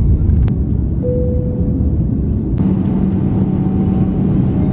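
Jet airliner heard from inside the cabin beside the wing engine: a loud, steady low rumble of engine and airflow during takeoff and climb. It is made of short clips joined by sudden cuts, with a steady hum joining in about two and a half seconds in.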